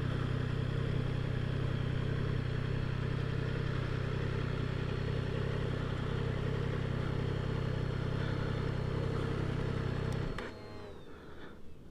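Triumph Tiger Sport 660's three-cylinder engine idling steadily, then switched off about ten and a half seconds in; a faint high whine falls away just after it stops.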